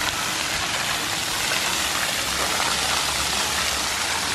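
Splash pad water jets spraying and falling onto the pad: a steady, even rush of water.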